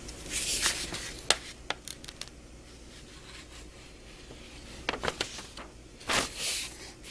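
Paper instruction sheets being unfolded and handled: a rustling swish of paper shortly after the start and another about six seconds in, with a few crisp ticks and taps of the paper in between.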